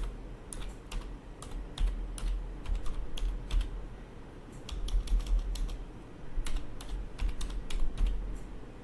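Typing on a computer keyboard: irregular runs of keystrokes with short pauses between them, as code is typed into an editor.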